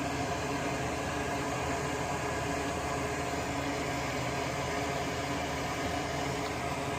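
Steady whirring hiss of a small fan or blower motor running without a break, with a faint hum under it.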